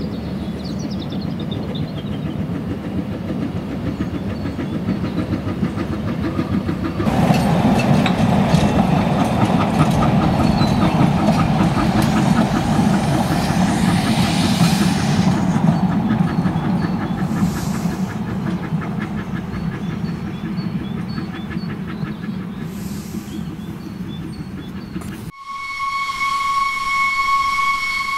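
Narrow-gauge steam locomotive working along the line with a quick rhythmic clatter, growing louder about seven seconds in. Near the end the sound cuts abruptly to a steady steam whistle blast.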